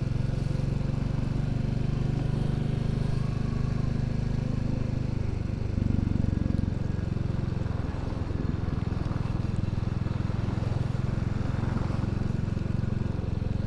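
Royal Enfield Classic 350's single-cylinder engine running steadily under way, with a brief change in its note around six seconds in.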